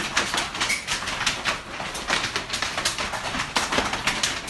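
Hailstorm: hailstones pelting down in a dense, irregular clatter of sharp ticks and taps over a steady hiss.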